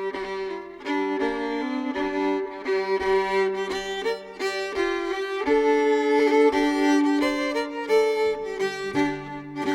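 Instrumental introduction of an English traditional folk song, led by fiddle playing the tune over a held low drone note that drops out about halfway through; lower notes come in near the end.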